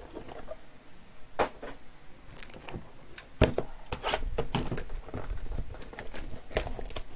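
Wrapped basketball trading card packs crinkling and tapping as they are handled and set down on a table: a run of irregular short crinkles and clicks, the sharpest about three and a half seconds in.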